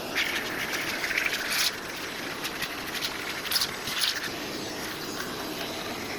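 Vacuum cleaner running steadily as its nozzle sucks dust off a dehumidifier filter, with scratchy rattling as the nozzle scrapes across the filter, strongest in the first second and a half and again briefly around three and a half and four seconds in.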